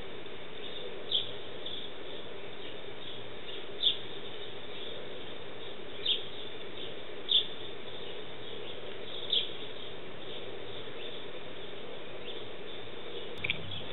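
Sparrows chirping: short single chirps, a handful of louder ones a couple of seconds apart among fainter ones, over a steady low background hum.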